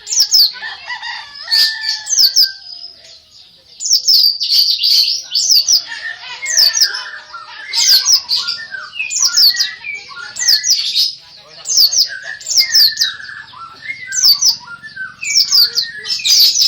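Cucak ijo (green leafbird) singing continuously and vigorously. Clusters of rapid, high, downward-sweeping whistles come roughly once a second, with lower warbling notes in between.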